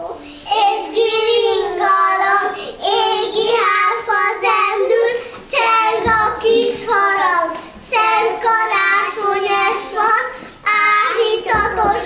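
Young children singing a song, phrase after phrase with short breaks between.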